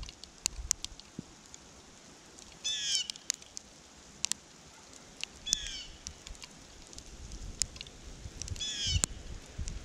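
A bird calls three times, one short call about every three seconds, over scattered sharp ticks and a low rumble.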